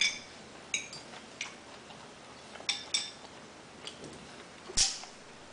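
Clam shells clinking against ceramic bowls and plates. There are about seven short, sharp clinks spread through, with a louder knock near the end.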